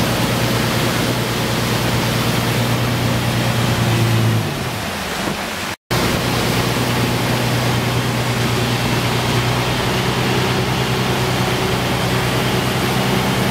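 Motorboat engine running steadily under the loud rush of churning wake water. About four seconds in the engine note falls away, there is a brief break in the sound, and then the engine and water noise carry on steadily.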